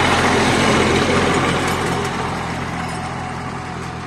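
Engine of a 20 HP three-cylinder mini tractor running steadily as the tractor passes close by and drives off, the sound fading as it moves away.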